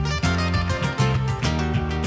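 Background music led by a strummed acoustic guitar, with a steady rhythm of plucked notes.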